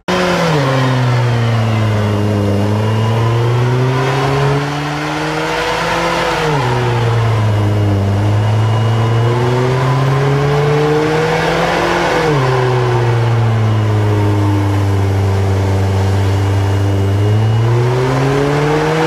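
Rear-wheel-drive coupe doing a burnout, its engine held at high revs over the rushing noise of the spinning rear tyres. The revs climb slowly over several seconds, then drop sharply, about every six seconds.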